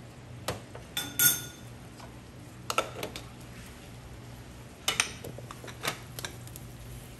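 Scattered clinks and knocks of kitchenware being handled and set down, about six in all, the loudest a short ringing clink about a second in. A steady low hum runs underneath.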